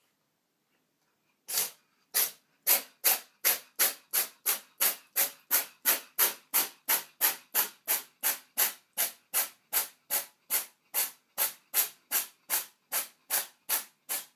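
A pet breathing in quick, regular hissing puffs, about three a second, starting about a second and a half in.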